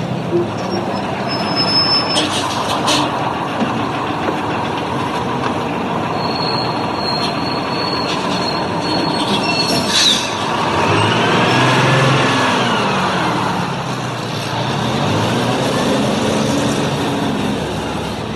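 Steady, dense vehicle running noise, train-like, with a few faint rising and falling pitch glides in the second half.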